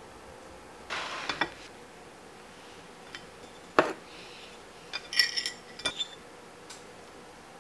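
A glass jam jar and a butter knife being handled over a china plate: a short scrape with small clicks about a second in, a sharp knock near four seconds, then a quick run of bright, ringing clinks of glass and metal on ceramic.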